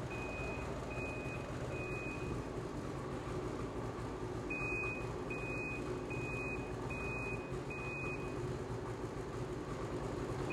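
Ski-Doo E-TEC two-stroke snowmobile engine idling steadily in its storage (summerization) mode, injecting oil into the engine to protect the crank bearings. Over it, a high electronic beep sounds in runs of five, a little over one beep a second.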